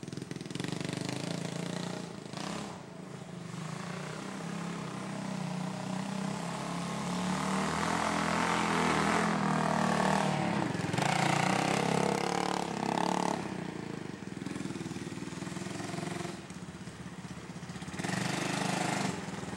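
Kawasaki Bayou ATV's single-cylinder engine running as the quad is ridden around, its note rising and falling with the throttle and loudest in the middle.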